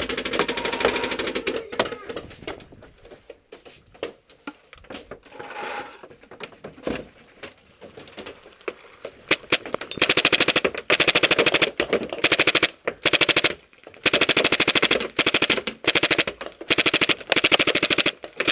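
Rap4 M60 paintball machine gun firing full-auto in about seven rapid bursts of roughly a second each, starting about ten seconds in. Before that, quieter rustling and scattered clicks as paintballs are loaded from a plastic bag.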